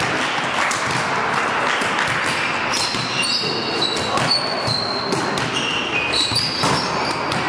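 Volleyball being played on a wooden indoor court: the ball is hit several times with sharp thuds, and from about three seconds in, sneakers squeak briefly and repeatedly on the floor, all over a steady hall din.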